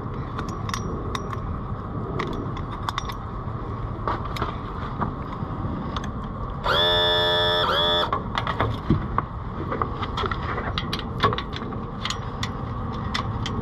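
Metal transom saver bracket and its strap hardware clinking and rattling as they are fitted to the boat trailer, in short irregular clicks. About halfway through, a loud steady horn-like tone sounds for just over a second.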